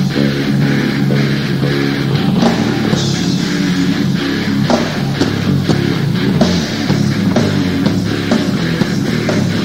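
Thrash metal band playing live: electric guitars riffing over bass and a drum kit, with steady drum hits.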